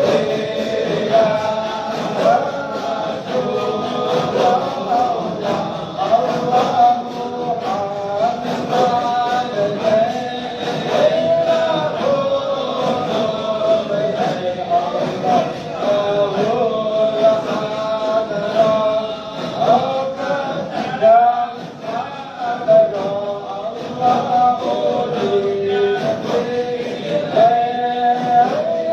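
A group of men's voices chanting together in a melodic Islamic devotional chant (dhikr), continuous with no pause.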